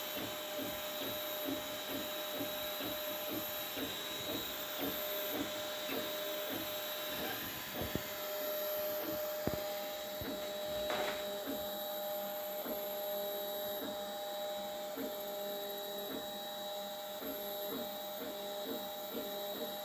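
3D printer printing: its stepper motors whine in short repeated pitched moves, about two to three a second, over a steady hum. Two sharp clicks come near the middle.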